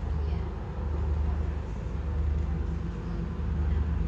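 Scania N230UD double-decker bus's diesel engine running steadily under way, heard from inside the passenger saloon, its drone swelling and easing slightly along with the road noise.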